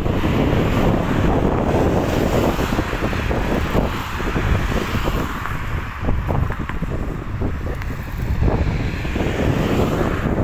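Wind buffeting the phone's microphone, a loud, uneven rumble, mixed with road traffic passing on the bridge.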